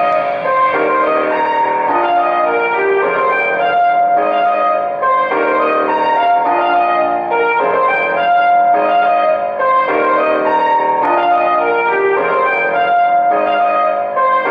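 Instrumental music from a phone played through a Peavey 400 Booster power amplifier into an open-air 12-inch speaker. This is the test after the amp's dirty transistor balance pot was cleaned, and it plays clean with no buzz or hum.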